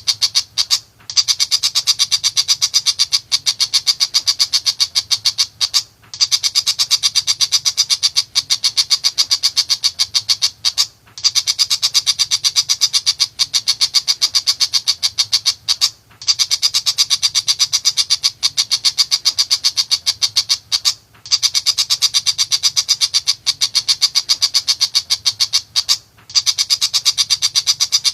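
Pentet macan shrike singing incessantly: fast, harsh, high notes about six a second, in runs of about five seconds, each broken by a short pause.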